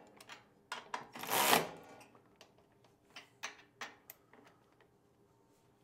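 Milwaukee cordless ratchet running in one short burst about a second in, driving down a hinge-plate bolt, followed by a few light clicks and taps of the tool and hardware.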